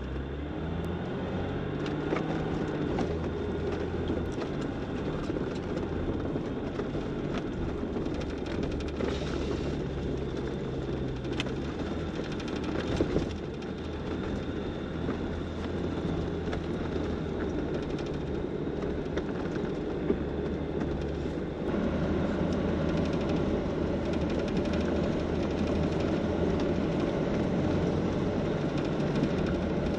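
A Jeep driving on a muddy dirt track: steady engine hum under tyre and road noise, with scattered small knocks and rattles, growing a little louder about 22 seconds in.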